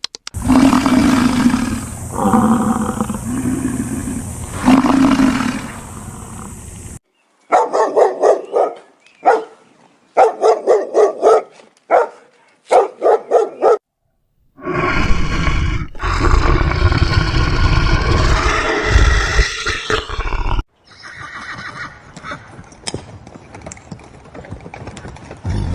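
A run of separate animal calls. First a long, low, pitched call with short breaks; then a string of short, quavering horse whinnies; then a loud, rough call; then quieter calls.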